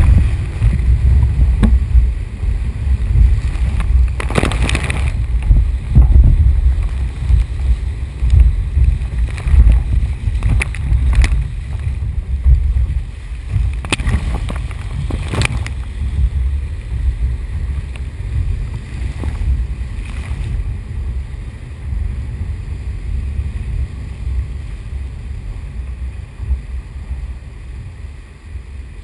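Whitewater rushing and splashing around a surf kayak riding a breaking wave, heard from the kayak's deck as a heavy low rumble with sharp splashes now and then. It dies down over the last several seconds as the kayak comes off the wave.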